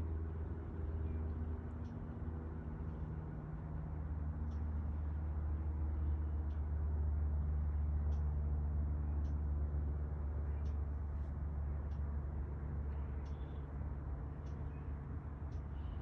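Steady low rumble of distant vehicle traffic with a faint engine hum, swelling a little in the middle, and a few faint short high ticks scattered through.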